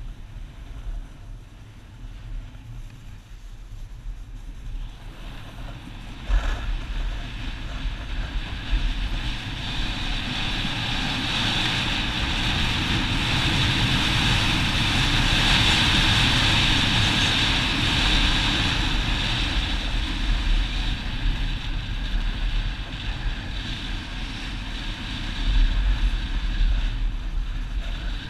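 Snowboard sliding and scraping over packed snow, with wind buffeting the head-mounted camera's microphone. It grows louder with a knock about six seconds in and is loudest around the middle as speed builds.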